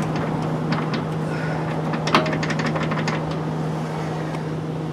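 Hand tools clicking and knocking against metal on a Jeep's front suspension: a few scattered clicks, then a quick run of them about two seconds in, over a steady low hum.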